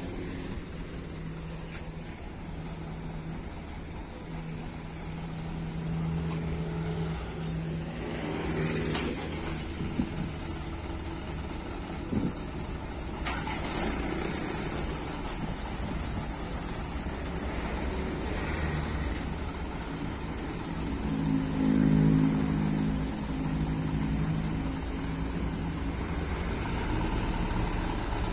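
Diesel light-truck engines idling with a steady low drone, growing louder for a couple of seconds about twenty-one seconds in. A few faint knocks come between ten and thirteen seconds in.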